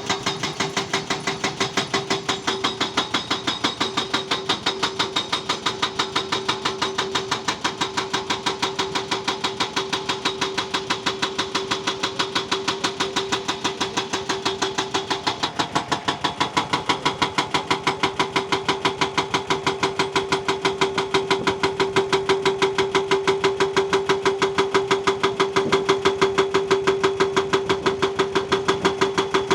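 Diesel engine of a JCB backhoe loader running steadily, with an even pulsing beat about four times a second over a constant hum. It grows a little louder in the second half.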